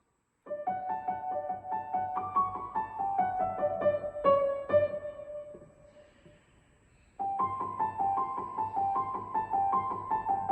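Piano or keyboard playing a school bell chime melody by ear, note by note. The first phrase dies away about five to six seconds in, and after a short pause a second phrase starts about seven seconds in.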